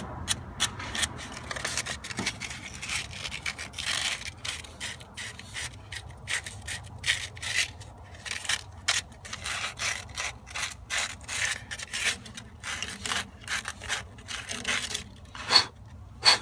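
Sandpaper rubbed back and forth by hand on a brass radiator fitting, an irregular run of scratchy strokes about two or three a second, cleaning the metal before soldering. Two sharper clicks come near the end.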